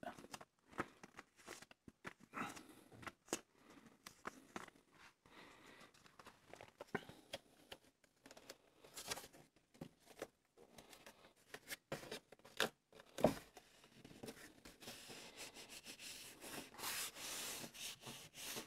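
Faint rustles and light taps of hands handling a cardboard box flap and laying a strip of wet gummed paper tape on it, with one sharper knock a little past the middle. Near the end, a few seconds of steady rubbing as the palms smooth the tape down onto the cardboard.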